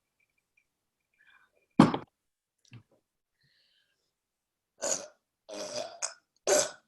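A woman's short, deep burp about two seconds in, with a small second one just after. Near the end come several short breathy outbursts.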